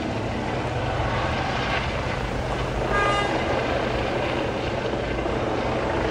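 A steady, loud engine drone with a fast low throb, under a wash of street noise. A brief high tone sounds about three seconds in.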